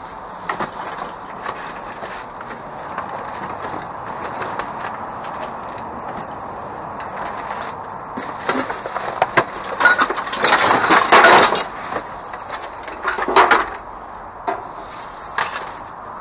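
Junk being rummaged through inside a dumpster: scattered knocks and clinks of objects being moved and set down, with a louder burst of clattering and scraping about ten seconds in and a shorter one about thirteen seconds in.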